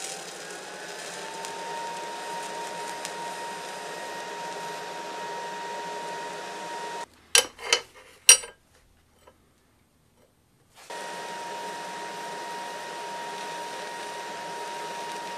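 TIG welding arc from a Miller Multimatic 220 AC/DC fusing two steel bolt halves: a steady hiss with a thin whine that rises in pitch over the first second or two and then holds steady. About seven seconds in the arc stops and there are three or four sharp metal clinks as the clamped work is handled. After a short silent gap the arc starts again with the same hiss and whine.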